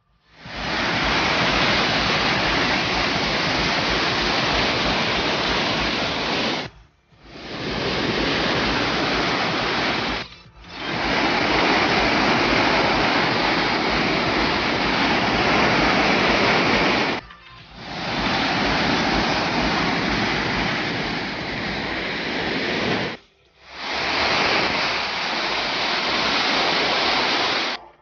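Waterfalls and a cascading stream rushing steadily over rocks, in five stretches, with the sound dropping out briefly four times between them.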